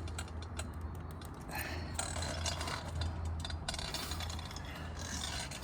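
Light mechanical scraping and rattling as carburetors are worked into rubber intake boots on a Yamaha Virago XV535, over a steady low hum.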